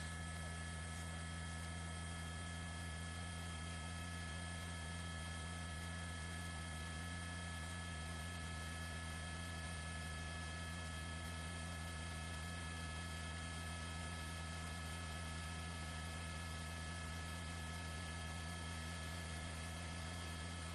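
Steady electrical hum with several fixed high-pitched tones over an even hiss, unchanging throughout, as from an open live-broadcast audio line with no one speaking.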